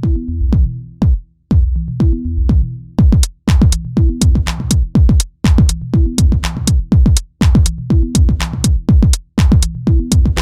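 Electronic background music with a steady drum-machine beat and a repeating bass line.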